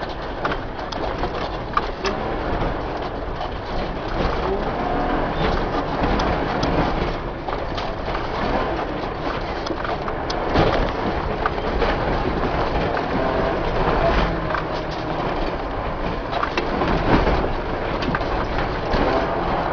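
Engine and road noise inside the cab of a moving vehicle, with frequent rattles and knocks throughout.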